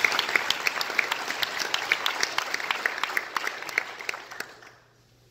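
Audience applauding, many hands clapping together, thinning out and dying away about four and a half seconds in.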